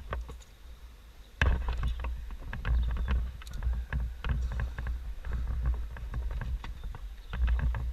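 Irregular knocks, clicks and scrapes of hands-on work at the chimney top, over a deep rumble, likely wind or handling on the microphone, that starts suddenly about a second and a half in.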